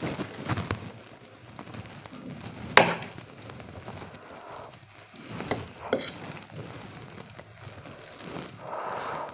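A metal fork twirls and lifts sticky, sauced Korean instant noodles on a plate, making soft wet stirring sounds. About three seconds in there is a sharp clink of fork against the plate, with a couple of lighter clicks a few seconds later.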